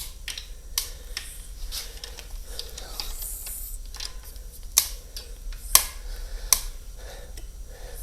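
Scattered clicks and light knocks of a folding electric bike's handlebar stem and latch being handled as the bike is folded. A few sharper clicks come about five, six and six and a half seconds in.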